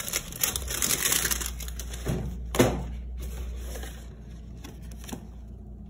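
Hands handling and opening a small cardboard box, the box scraping and rustling, with two sharp knocks about two seconds in, then quieter handling.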